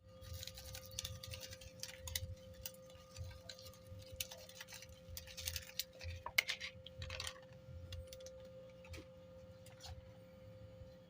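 Irregular light clicks and clinks of small hard objects being handled, busiest in the middle, over a faint steady hum.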